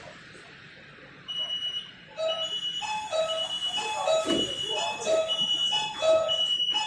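Metro train door warning chime: an electronic beeping that starts about a second in, a high beep alternating with lower tones, repeating roughly once a second.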